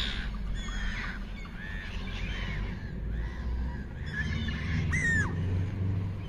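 A flock of gulls calling: scattered harsh calls, several sliding down in pitch, the loudest about five seconds in, over a steady low rumble.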